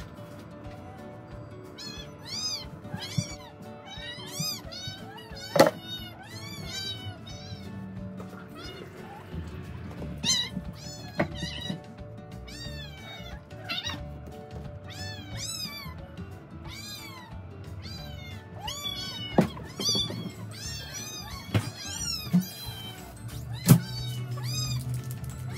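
House cats meowing over and over, many short calls in quick succession, sped up to double speed so the meows come out high and quick. A few sharp knocks fall among them.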